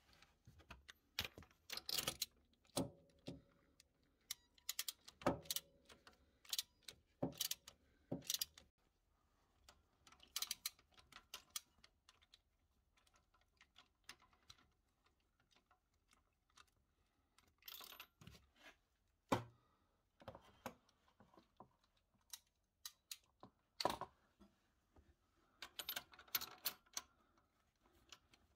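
Faint, irregular clicking and clinking of a metal socket and extension being worked by hand into the scooter's engine, with small knocks of tool on metal in clusters and a pause partway through.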